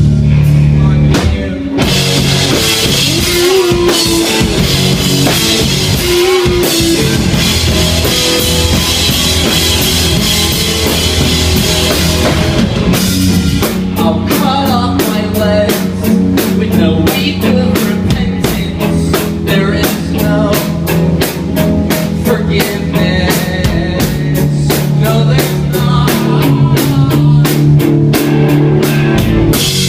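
Rock band playing an instrumental passage with drum kit, bass and guitar; the drums come in with a steady, driving beat about a third of the way in.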